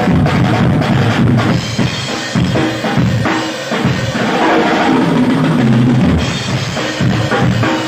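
Drum kit played live in a dense run of hits: bass drum, snare and cymbals, with a held low pitched tone underneath in the middle of the passage.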